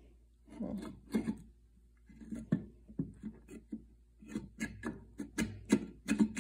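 Hands pulling, rubbing and tapping at the stuck lid of an Ironrite ironer's housing: an irregular run of knocks, clicks and scrapes, coming faster in the second half, as the lid fails to lift.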